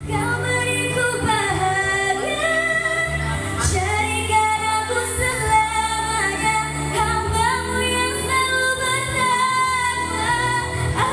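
A girl singing a slow Indonesian Islamic pop ballad into a handheld microphone, amplified, over backing music that holds steady low notes beneath her melody.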